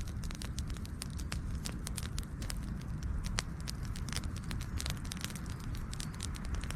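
Campfire burning, wood crackling and popping with many sharp snaps a second over a steady low rumble of the flames.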